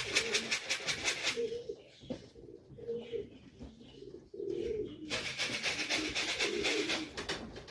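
Racing pigeons cooing in a loft, with two spells of fast rhythmic fluttering, one at the start and one about five seconds in.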